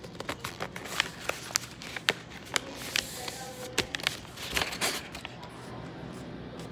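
A sheet of printer paper being folded and its creases pressed down by hand: a run of sharp crinkles, taps and rubbing that thins out after about five seconds.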